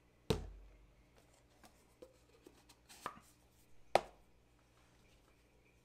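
Plastic paint bottle and its cardboard packaging tube being handled and set down on a desk's cutting mat: three sharp knocks, just after the start, about three seconds in and a second later, with faint handling clicks between.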